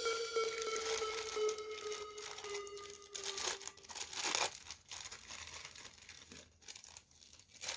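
Toy packaging wrapping crinkling and tearing in short, irregular crackles as the toy is unwrapped, with a held note fading out over the first few seconds.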